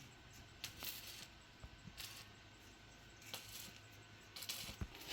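Faint, scattered metallic clinks and short bursts of hiss from metal fabrication work, a few times over the stretch.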